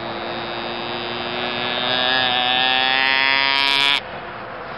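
Gooseman cocobolo-wood deer call blown as a fawn bleat, the lost-fawn distress call, with its reed set short for a high pitch. One long bleat with a pitched tone that grows louder about halfway through and cuts off sharply about four seconds in.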